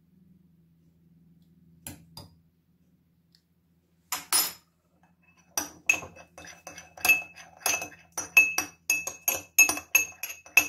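Metal teaspoon stirring honey into hot water in a small glass dish to dissolve it. A couple of separate knocks come first, then from about halfway in a quick run of clinks of spoon against glass, about three a second, each ringing briefly.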